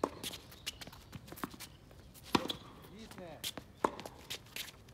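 Tennis rally on a hard court: sharp pops of rackets striking the ball and the ball bouncing, several times, the loudest hit about two and a half seconds in. Rubber-soled tennis shoes squeak on the court surface around the middle.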